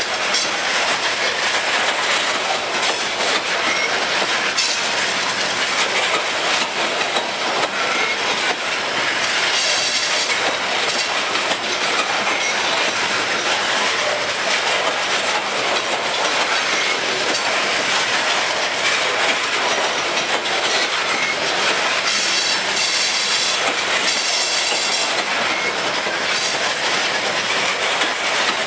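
Loaded freight train of aluminium coal gondolas rolling steadily past at close range, its wheels clattering over the rails. High wheel squeal rises above the clatter about ten seconds in and again for a few seconds past the twenty-second mark.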